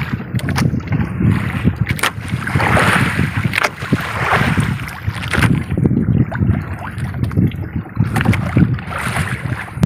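Wind buffeting the microphone over water washing and splashing against a small outrigger boat's hull, with a few short knocks.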